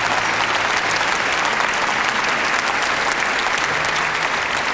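Audience applauding: many hands clapping together in a dense, steady ovation.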